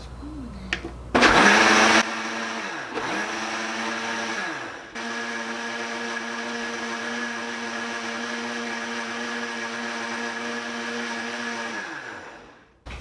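Countertop blender mixing liquid pancake ingredients: the motor starts about a second in, loudest for the first second, dips in speed twice, then runs steadily and winds down with a falling pitch near the end.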